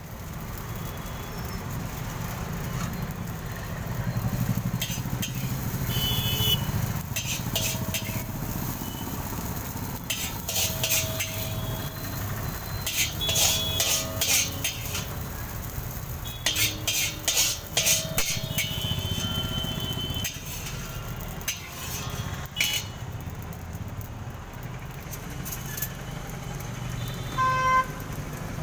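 Metal spatula scraping and clanking against a large steel wok as fried rice is stirred and tossed, in irregular runs of quick strokes, over a steady low rumble.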